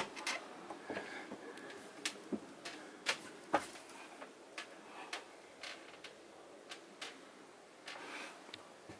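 Latch of a camper van's bathroom door clicking as the door is opened by its knob, followed by scattered light clicks and knocks of the door and fittings, about one a second, in a small, quiet room.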